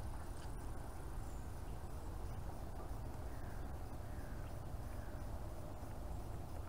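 Steady low wind rumble on the microphone, with a few faint bird calls about halfway through.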